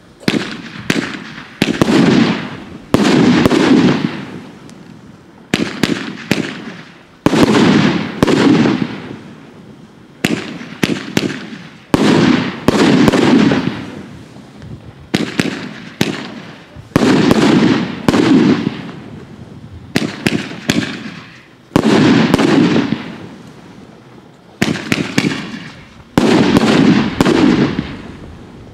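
Category 3 roman candle firing multicolour peony shots in a steady series: sharp bangs every second or two, often in quick pairs, each trailing off in a fading rumble.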